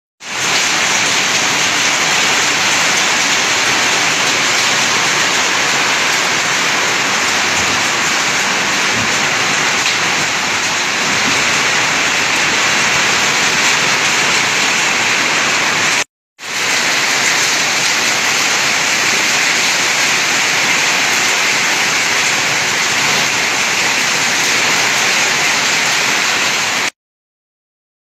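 Heavy storm rain pouring onto paved ground and standing water, a loud, steady, dense hiss. It breaks off for a moment about sixteen seconds in and stops abruptly about a second before the end.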